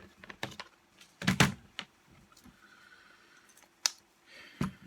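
Scattered clicks and knocks of tools and saw parts being handled while a reciprocating saw is taken apart. The loudest cluster of knocks comes about a second and a half in.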